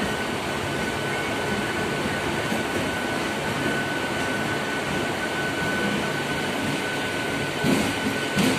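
Running noise of a Mumbai suburban EMU heard from its open doorway while under way: a steady rumble of wheels on track with a steady high-pitched whine. Two brief knocks come near the end.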